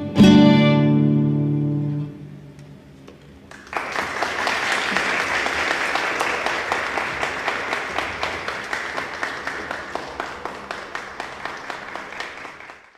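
Violin and classical guitar strike a final chord that rings out and dies away over about two seconds, the end of the piece. After a short pause an audience breaks into applause, the clapping slowly fading.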